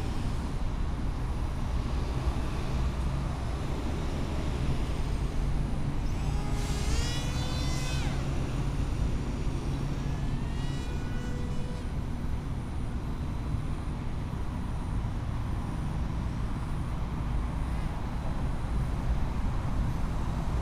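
Steady low rumble of distant traffic, with the small electric motor of an RC flying wing whining up in pitch twice, about a third of the way in and again about halfway.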